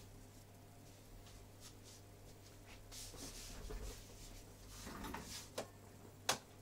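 Quiet room tone with a steady low hum, broken by a few scattered light knocks and rustles and a single sharp click near the end.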